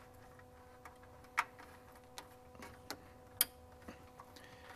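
Ethernet plugs being pushed into the PoE ports on the back of a network video recorder: a few short, sharp clicks and small knocks from the plugs and cables being handled, the loudest about a second and a half and three and a half seconds in. A faint steady hum runs underneath.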